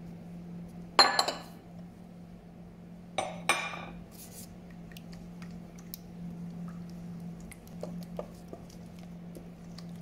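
Kitchenware clinking against a stainless steel mixing bowl: one loud ringing clink about a second in, two sharper knocks a couple of seconds later, then light taps as a wooden spatula stirs eggs into a thick curry paste and coconut milk mixture.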